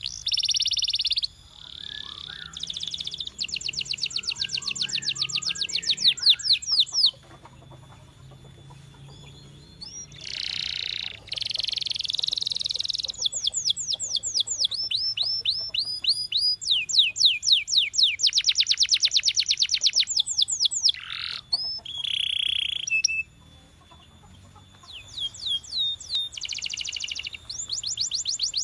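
Domestic canary singing: fast trills of repeated sweeping notes alternating with buzzy rolls, broken by a few short pauses.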